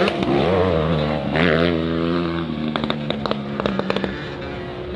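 Several small two-stroke 85 cc motocross bikes racing, their engines revving up and down in overlapping waves of pitch. A short run of sharp clicks comes about three seconds in.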